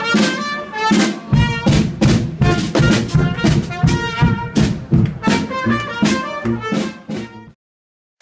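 Bavarian brass band (Blaskapelle) playing live: trombones and tuba over a steady drum beat. The music stops abruptly near the end.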